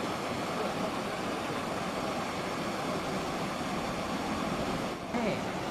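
Steady rush of floodwater pouring over a weir and running down a swollen river, dipping briefly near the end.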